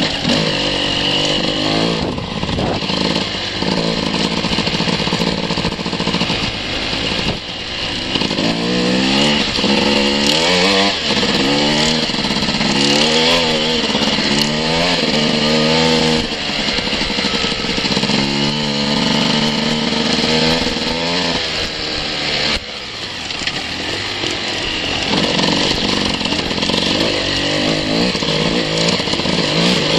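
Enduro dirt bike engine being ridden, revving up and down over and over as the throttle is worked, and easing off briefly twice.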